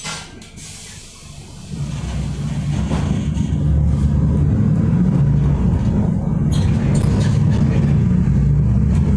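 City bus: a short hiss of air from its air brakes at the start, then the engine grows louder over about two seconds and runs with a loud, steady low drone, with another brief hiss about six and a half seconds in.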